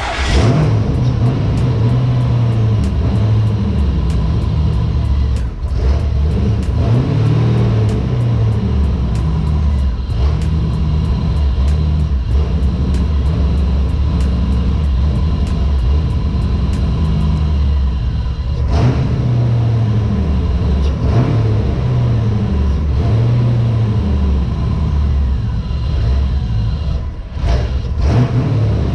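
Car engine running steadily with a deep low drone, an engine being diagnosed for a misfire after new spark plugs and plug wires. Background music plays along with it.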